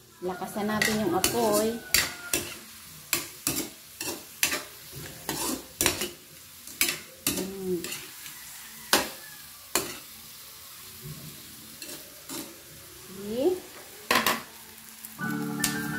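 Spatula scraping and knocking against a metal wok as shrimp are stirred and turned, over a steady sizzle of frying oil. The scrapes come irregularly, about one or two a second.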